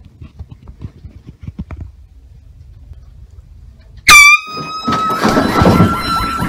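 An air horn goes off about four seconds in: one loud, held blare that drops in pitch as it starts and then stays steady, with loud commotion mixed under it about a second later. Before it there are only faint knocks and handling noise.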